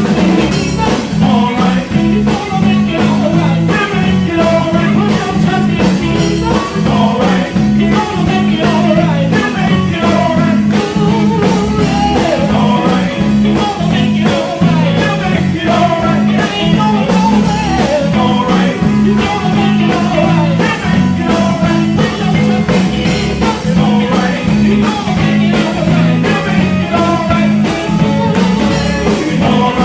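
Gospel group singing with a live band: electric guitar and bass over a steady beat.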